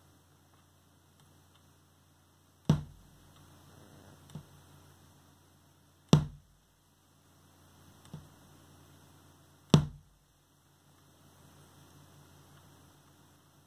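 Pop noise from the Hansung Ultron 2779UH monitor's rear headphone jack: three sharp, loud pops about three and a half seconds apart, with two fainter clicks between them, over a low electrical hum and hiss. The pops come as the monitor's mute setting is switched on and off, and they are the audio-output fault being shown.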